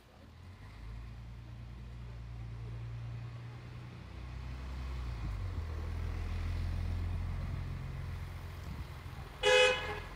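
A motor vehicle's engine rumbles low and steady, swelling about halfway through, then a single short horn toot near the end.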